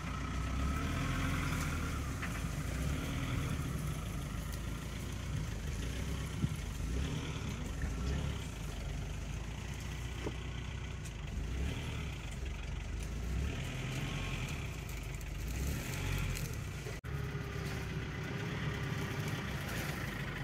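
Engine of the open safari vehicle idling, a low steady rumble.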